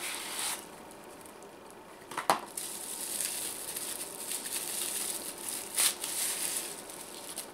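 Plastic bubble wrap crinkling and rustling as a flashlight is slid out of its cardboard box and handled in its wrapping, with a sharp click a little over two seconds in and another near six seconds.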